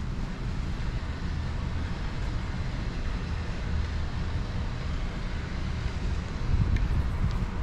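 Steady low rumble of distant city traffic, swelling slightly near the end.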